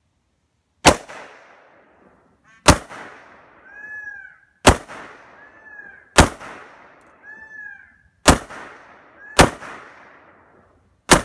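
Seven single shots from an AR-15 rifle, each a sharp crack with a short trailing echo, fired at an uneven pace about one to two seconds apart.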